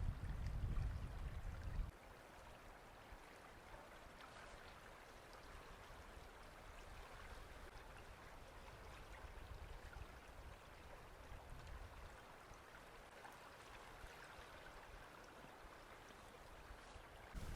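Faint steady rushing hiss, with a low rumble of wind on the microphone that stops about two seconds in.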